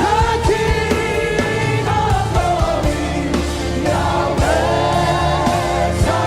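Worship music: voices singing long, held notes with vibrato over a band with bass and a steady drum beat.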